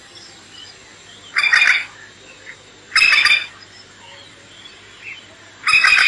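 Masked lapwing giving three loud, shrill chattering calls, each under half a second, about a second and a half apart.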